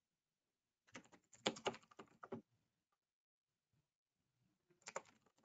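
Faint typing on a computer keyboard: a run of keystrokes about a second in, then a few more near the end.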